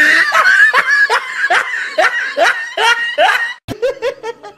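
A man laughing hard and high-pitched: a held squeal, then a quick run of laughs, each one falling in pitch, stopping about three and a half seconds in.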